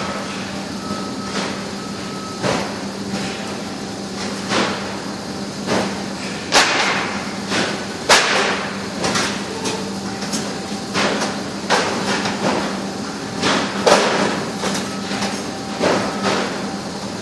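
Irregular knocks and clatters, roughly one every second or so, over a steady low hum.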